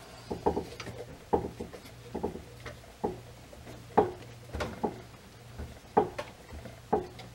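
An adjustable wrench clinking on a steel hydraulic compression fitting held in a bench vise as the fitting is snugged up in short swings. About a dozen light metallic clicks come at irregular intervals, the loudest about four seconds in.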